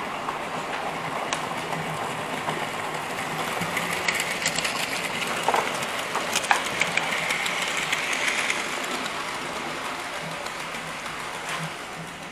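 Model freight train running past on the layout's track: the rolling clatter of its wheels and the whine of its motor grow louder as it comes close, with a few sharp clicks in the middle, then fade as it moves away.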